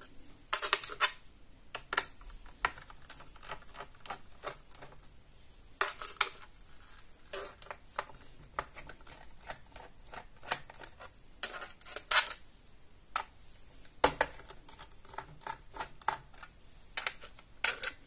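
Small screwdriver unscrewing the hard-drive screws from a laptop's plastic base: irregular light clicks and scrapes of metal on metal and plastic, with a few sharper clicks in clusters every few seconds.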